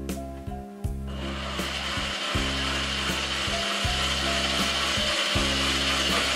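Electric drill starting up about a second in and then running steadily, spinning a serrated coconut grater disc on its shaft.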